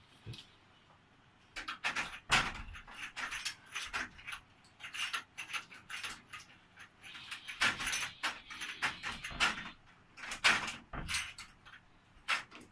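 A cat paws at the handle of a wooden door, rattling it in an irregular run of sharp clicks and knocks that lasts about ten seconds.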